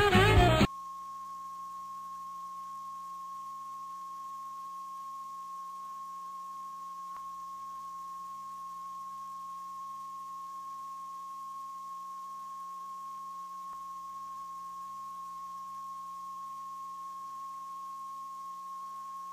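Music cuts off abruptly under a second in, and a steady, unbroken reference test tone follows: the line-up tone that goes with TV colour bars on a video tape.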